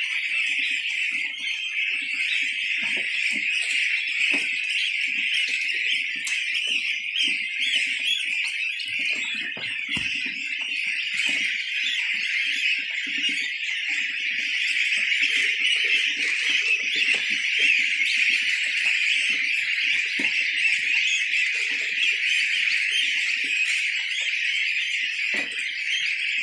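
A large flock of young goslings peeping together in a continuous high-pitched chorus. Underneath are soft rustling and knocks from grass feed being mixed by hand in a plastic bucket.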